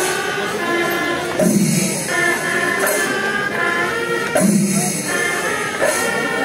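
Kerala temple festival ensemble music: drums and clashing cymbals with a sustained pitched melody above them, in a phrase that repeats about every three seconds.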